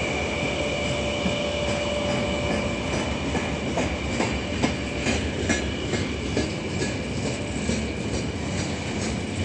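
Freight train of open gondola wagons rolling past under braking: a steady high-pitched brake squeal from the wheels runs over the rumble of the train. From about three seconds in, the wheels click over the rail joints several times a second.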